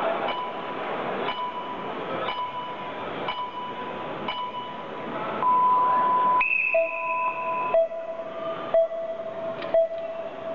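Electronic countdown timer over a public-address system, beeping once a second over crowd murmur. A little past halfway there is a longer beep and a brief higher tone, and then a lower tone continues with a sharp click each second, counting down to the start of the robot match.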